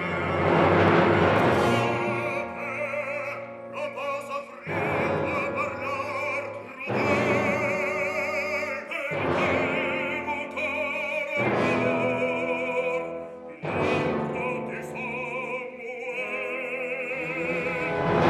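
Operatic bass voice singing with wide vibrato over a full orchestra, with loud orchestral chords struck again about every two seconds.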